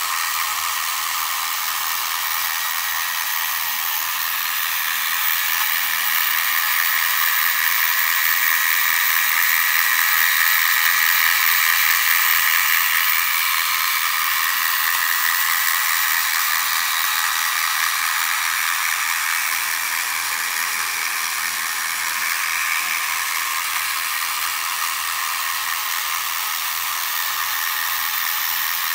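Small desktop robot vacuum cleaner built from an Otona no Kagaku No.33 kit, running: its little motor and fan give a high, steady whir that grows a little louder midway and eases off again.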